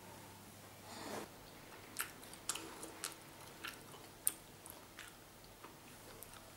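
Faint mouth noises close to the microphone: irregular wet clicks and smacks, with a breath about a second in.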